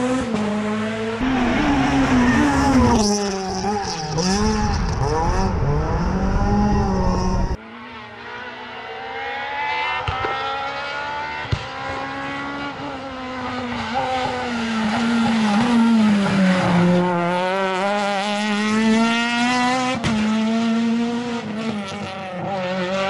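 Renault Clio R3 rally car's naturally aspirated four-cylinder engine driven flat out, its pitch climbing and dropping again and again through upshifts, lifts and downshifts. Several passes are spliced together; the sound changes abruptly about seven and a half seconds in.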